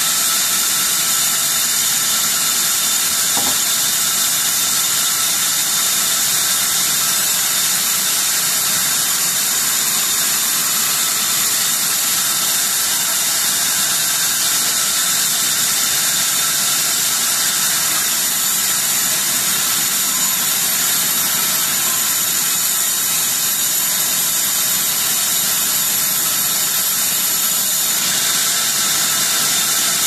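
Large vertical band saw running steadily while its blade rips a long wooden slab lengthwise: a constant high whine over a loud hiss.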